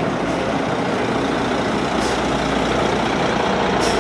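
Heavy vehicle engine, such as a truck or bus, running steadily close by with a low hum, with two short hisses about two seconds in and near the end.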